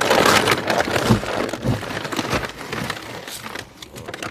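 Loud rustling and crackling close to the microphone, dense with small sharp ticks, dying away near the end.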